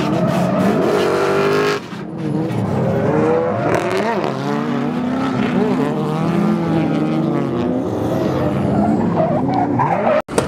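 Drift cars' engines revving hard, the pitch rising and falling with the throttle, over tyre squeal as the cars slide sideways. The sound drops away suddenly just before two seconds in and cuts out briefly near the end.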